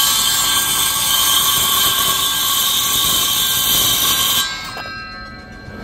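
Ridgid circular saw running at full speed and cutting through a wooden board: a steady high whine with blade hiss. About four and a half seconds in the cut ends and the saw winds down.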